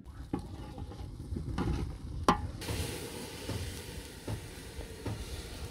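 Wood fire crackling and popping, with one sharp loud pop a little over two seconds in; from about two and a half seconds a steady hiss joins the crackle.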